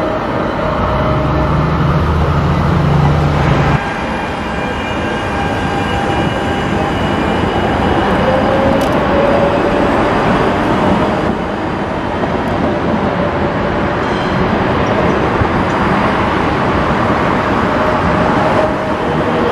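Munich low-floor articulated trams passing close by on street track: a steady rolling rumble of steel wheels on rail with faint thin whining tones. A low hum sounds for the first few seconds and stops suddenly.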